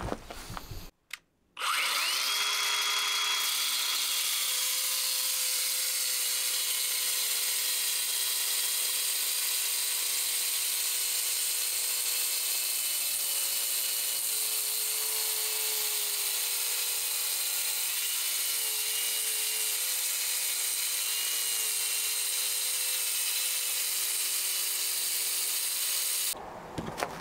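Cordless Hilti angle grinder with a diamond disc cutting granite. It starts about two seconds in, runs steadily, and its motor pitch dips and wavers under load in the second half before it stops near the end.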